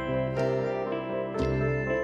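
Soft instrumental background music, with new notes struck about once a second over held tones.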